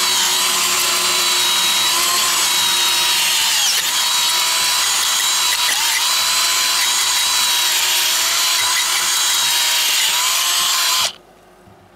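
Cordless drill spinning a 3.5-inch garden auger bit down into flower-bed soil, its motor whining steadily with a couple of brief dips in pitch, then stopping suddenly about a second before the end. The auger goes in with little resistance.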